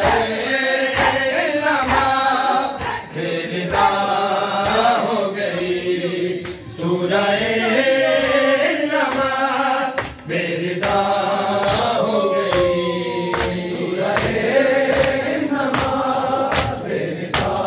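Male voices chanting an Urdu noha (mourning lament) together, with a steady beat of sharp hand strikes on chests (matam) keeping time, about one to two a second.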